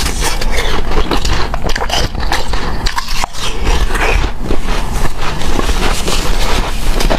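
Close-up chewing of hard, snow-like powdery ice: dense, irregular crunching and squeaking that goes on without a break.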